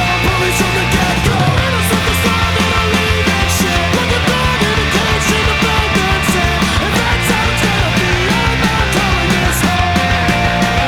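Loud rock music with distorted guitars and a steady drum beat, cymbals striking at regular intervals.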